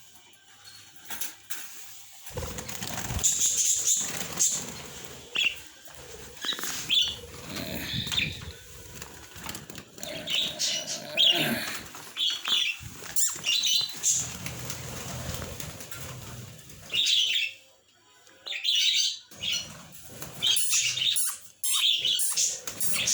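Budgerigars flying around a room: wings flapping in long flurries, with a short lull before more flapping near the end, and frequent short high chirps.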